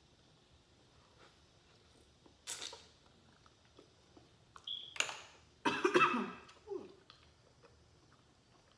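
Mouth sounds of someone eating spicy seafood: a couple of short slurps, then a brief vocal sound, the loudest part, about six seconds in.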